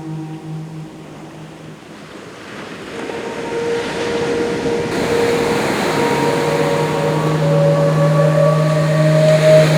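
Ocean surf swelling steadily louder. Over it a low, long-held chanted "Om" fades out early and comes back about six seconds in, while a flute holds notes that climb step by step in the second half.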